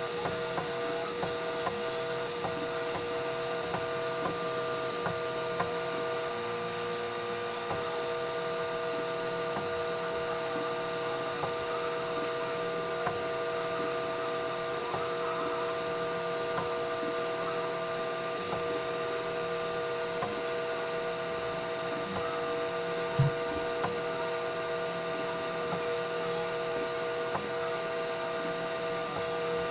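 3D printer running, its stepper motors giving a steady whine with light ticking; the tones shift a few seconds in. One sharp click about 23 seconds in.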